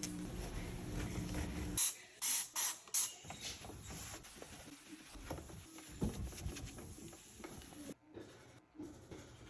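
A steady hum cuts off about two seconds in. Three quick squirts from a spray bottle of cleaner follow, then faint rubbing and light knocks of wiping.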